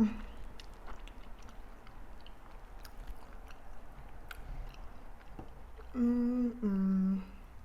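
Close-miked chewing of soft, very ripe fried plantain, with small wet mouth clicks. Near the end come two held hummed "mm-mm" notes of enjoyment, the second lower than the first.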